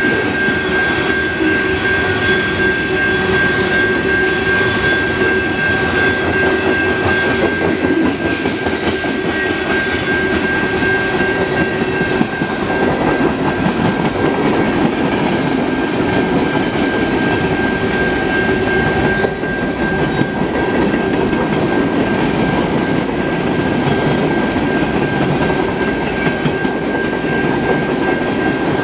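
Mixed freight cars (covered hoppers, tank cars and boxcars) rolling past on their steel wheels, a steady rumble and rattle from the trucks, with a steady high-pitched ring over it.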